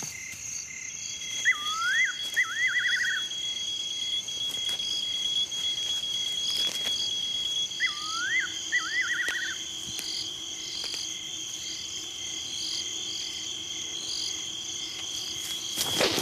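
Night insect chorus: crickets trilling steadily at several high pitches. Twice, about six seconds apart, a short animal call cuts in: a quick sweep up and down followed by a rapid run of notes. A brief noise rises near the end.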